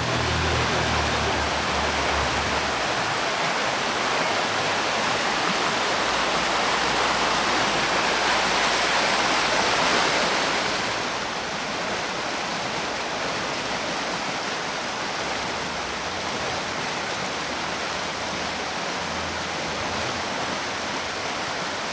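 A creek running high, its fast water rushing steadily; the rush is a little louder for the first ten seconds or so, then eases slightly.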